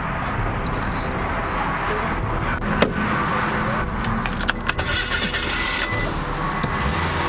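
A small car's engine running steadily, with light metallic jingling and a scattering of sharp clicks and knocks.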